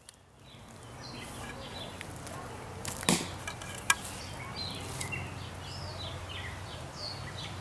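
Paracord bowstring of a homemade 3/4-inch PVC longbow released with a snap about three seconds in, then a sharp smack less than a second later as the arrow strikes a cardboard box target. Birds chirp in the background.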